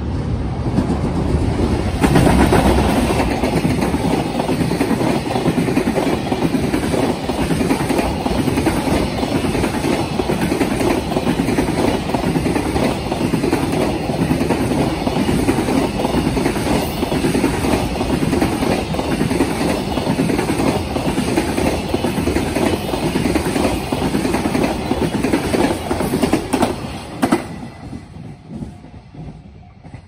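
EF210 electric locomotive and its container freight wagons passing close by, the wheels clattering rhythmically over rail joints and turnouts. The sound jumps up about two seconds in as the train draws level and fades away near the end as the last wagons go by.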